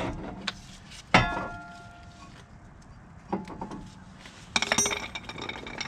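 Metal tools clanking as they are handled. There is one sharp ringing metal strike about a second in, then a short rattle of clinks near the end.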